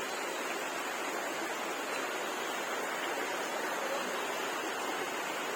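Rushing water: a steady, even hiss with no breaks.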